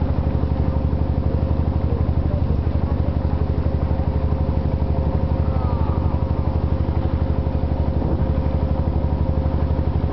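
Small wooden boat's engine running steadily at cruising speed, an even, fast putter that does not change.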